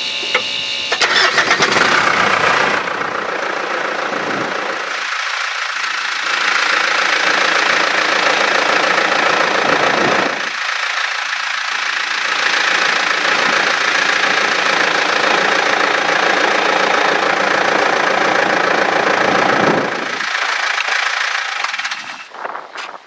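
Mitsubishi Pajero 4's 3.2-litre four-cylinder diesel being started and running, its first start after a fuel filter change and hand-priming. The sound is loud, breaks off briefly twice, and drops away near the end.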